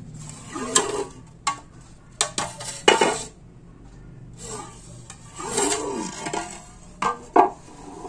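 Plastic air-conditioner condenser fan blade being handled and turned over on a tile floor: rubbing and scraping with several sharp knocks of plastic on tile, the loudest about three seconds in and again near the end.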